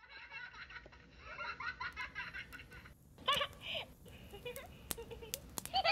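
High-pitched giggling and little laughs, with a louder burst about three seconds in and a few sharp clicks after it.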